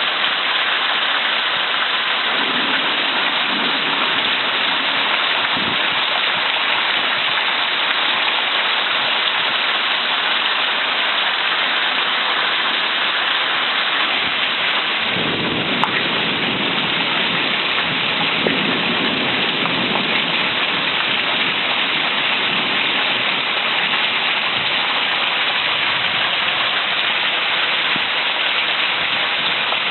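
Heavy thunderstorm rain pouring steadily. Thunder rumbles briefly about two seconds in, then again in a longer roll lasting several seconds from about halfway through.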